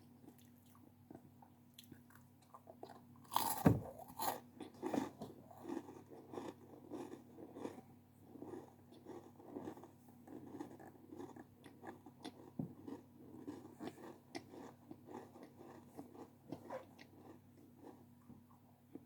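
Close-miked eating of a crunchy snack: one loud crunching bite about three and a half seconds in, then steady chewing full of small crackles.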